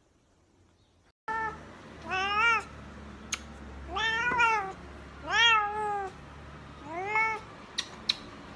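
A calico cat meowing four times, starting about a second in, each call rising then falling in pitch, with a few faint clicks between.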